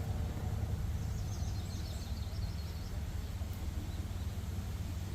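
Steady low outdoor rumble, with a small bird chirping a quick run of high notes about a second and a half in.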